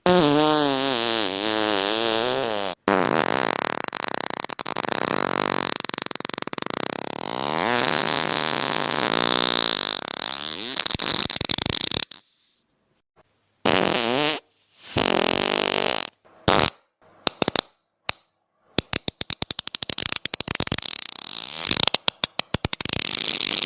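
Fart sound effects played one after another. First a long fart with a wavering pitch lasts about twelve seconds, broken once briefly near the start. After a short pause come several shorter farts and then a fast run of short pops.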